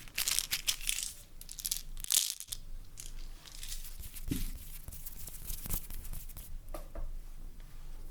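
Close-miked crinkling and rustling of a material being handled and crumpled, densest in the first two seconds, then softer rustles with scattered clicks and a soft thud about four seconds in.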